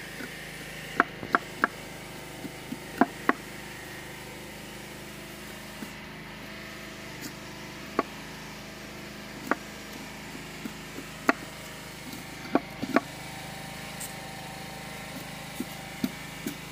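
A knife chopping into and splitting a sugarcane stalk on a wooden plank: a dozen or so sharp, short cracks at irregular intervals, several in quick pairs, over a faint steady hum.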